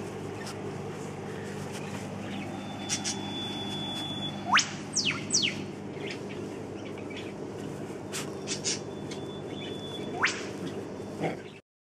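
Outdoor ambience: birds call with a few sharp whistled sweeps, one rising then two falling about four seconds in and another rising near the end, with scattered short chirps, over a steady low hum. The sound cuts off abruptly just before the end.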